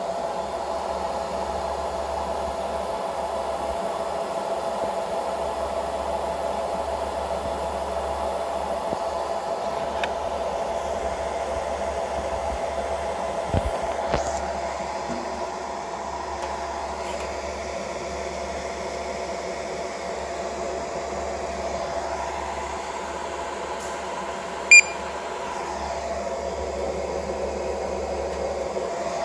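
A fiber laser marking machine running with a steady fan hum and a faint whine. About a second before the end comes a brief knock, and near the end a handheld barcode scanner gives one short beep as it reads the freshly marked barcode.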